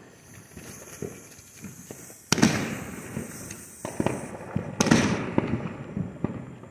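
Small dog-shaped novelty ground firework (Sir Dumps-a-Lot) burning: a spitting hiss and crackle as it throws sparks, with two louder sharp cracks about two and a half and five seconds in.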